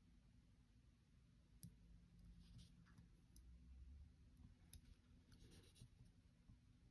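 Near silence with a few faint clicks and light rubbing: small plastic Beyblade parts and a sticker being handled.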